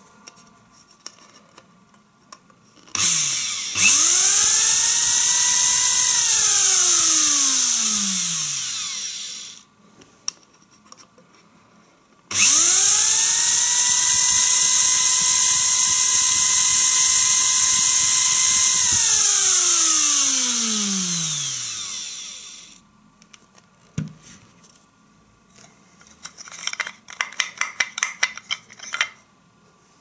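Krups 75 electric blade coffee grinder running empty on a function test: the motor spins up quickly to a steady high whine, holds it, then falls in pitch as it coasts down, twice. Near the end there is a rapid rattle of clicks.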